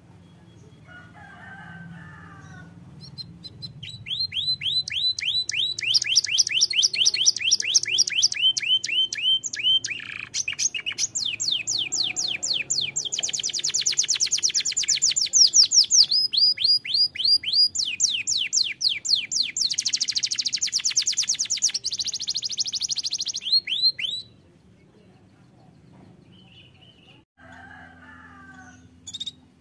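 Domestic canary singing a long song of fast rolling trills: rapid repeated sweeping notes in phrases that shift pitch every few seconds. The song stops suddenly about 24 seconds in, leaving only a few faint chirps.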